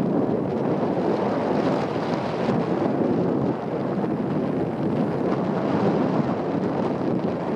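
Steady wind noise rushing over the microphone on a moving moped, with a brief dip in loudness about three and a half seconds in.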